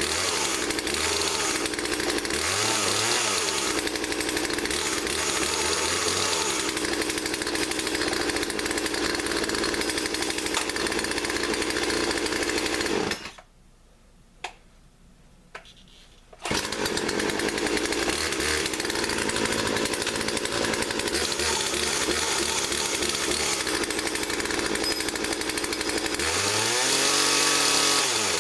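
Poluan Pro PR-4218A gasoline chainsaw running, its revs rising and falling as the throttle is worked, with a rev up near the end. The sound drops out abruptly for about three seconds halfway through, then the saw is running again.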